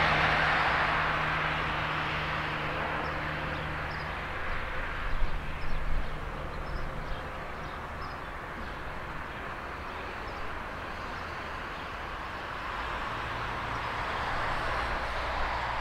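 Small diesel shunting locomotive running as it moves off with an open freight wagon, its sound fading as it pulls away and swelling a little again near the end. A few low bumps about five seconds in.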